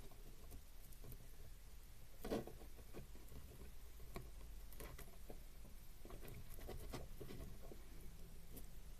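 Faint, scattered clicks and rustles of beads and thread being handled as the thread is passed through the beads of the beadwork, with one louder rustle about two seconds in.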